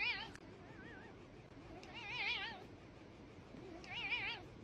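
Domestic cat meowing in several drawn-out calls, each with a quickly wavering, warbling pitch, about two seconds apart.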